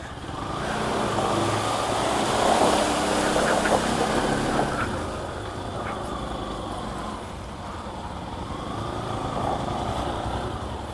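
Bajaj Pulsar NS200 motorcycle running while ridden over rough off-road ground, under a steady rushing noise.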